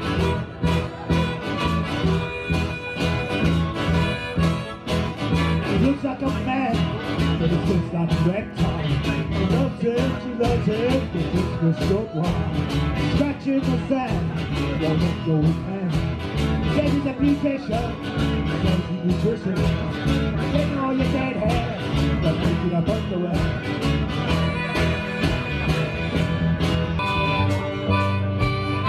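Live blues band: electric guitars over a steady beat, with a harmonica played into a vocal microphone.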